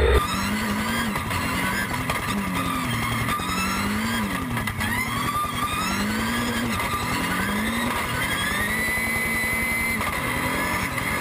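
Dacia Duster No Limit rally car's engine at full throttle. Its pitch climbs again and again and breaks off at each gear change as the car accelerates up a gravel road.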